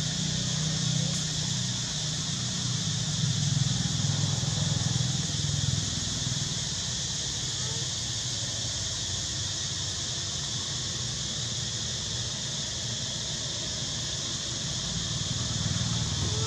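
Steady outdoor background: a constant low rumble and an even high-pitched hiss, with a few faint short chirps about a second in, around eight seconds in, and at the very end.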